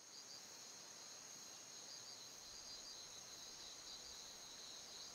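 Faint, steady chirping of crickets over a low hiss: night-time ambience.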